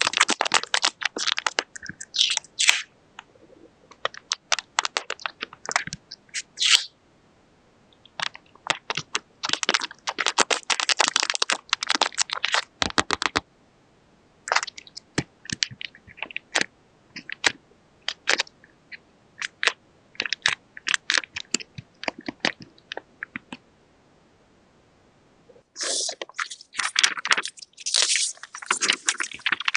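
Paper crinkling and crackling as a handmade paper squishy is handled: dense runs of sharp crackles broken by a few short pauses.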